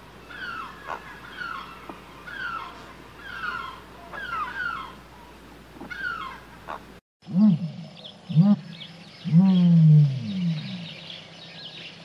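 Animal calls in two takes joined by a sudden cut. First comes a series of short, high calls falling in pitch, repeated about every half second. After the cut come louder, lower calls that rise and fall, one drawn out for about a second.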